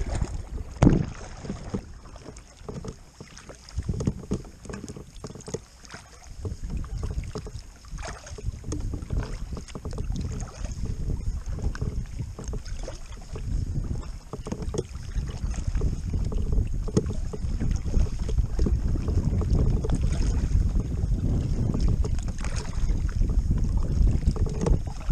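Double-bladed kayak paddle strokes dipping and splashing, water dripping off the blades, under a rumble of wind on the microphone that grows stronger through the second half. A sharp knock about a second in.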